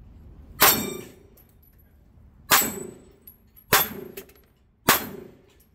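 Four pistol shots, the first two about two seconds apart and the rest about a second apart, each followed by the clang and ring of steel plate targets being hit.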